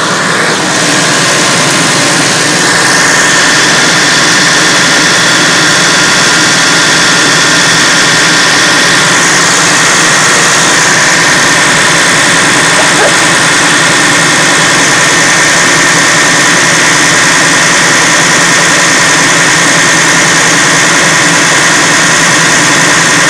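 Massey Ferguson 1100's Perkins 6-354 six-cylinder turbo diesel running steadily after a cold start, with a steady high whine over the engine. It gets a little louder about three seconds in and then holds even.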